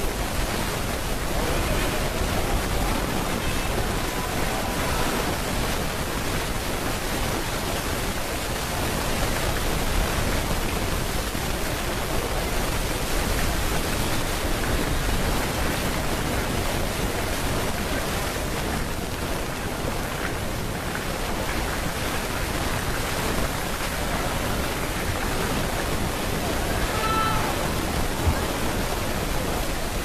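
Steady rushing noise with no distinct events.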